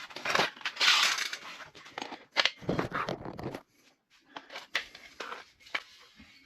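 Irregular rustling and scraping of building materials being handled, with a few sharp clicks and a heavier scrape about halfway through.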